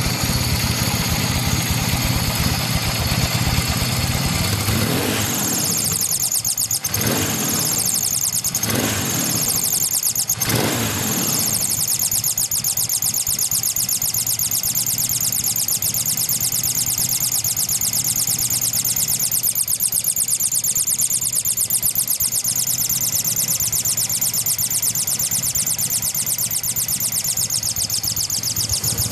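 Yamaha XS650SE's parallel-twin engine running, blipped several times about five to eleven seconds in and then settling back to a steady idle. A steady hissing noise runs over the engine sound, which the owner traces to air being sucked in through a slight gap at the carburettor rather than to the engine itself.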